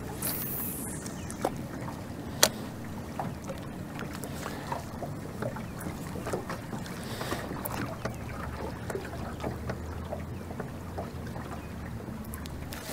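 Open fishing boat on the water: a steady low hum with wind and water noise, broken by a few sharp clicks of rod and reel handling, the loudest about two and a half seconds in.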